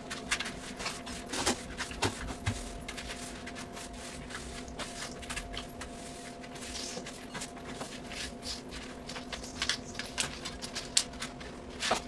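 Broom sweeping tinsel off a tile floor: many short, irregular scratchy strokes of the bristles. A steady low hum runs underneath.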